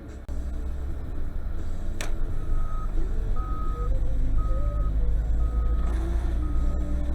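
Vehicle engine running with a low rumble that builds, while a warning beeper sounds five evenly spaced single-tone beeps, about one a second, starting a little after a sharp click about two seconds in.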